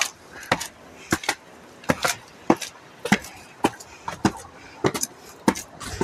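Footsteps of a person walking on a hard surface, sharp short steps about two a second.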